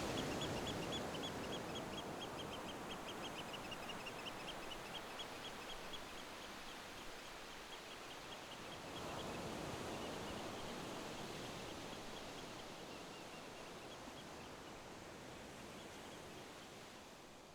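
Outdoor nature ambience: a rapid series of high chirps, about five a second, from a bird or insect, over a soft even rushing noise, all slowly fading out.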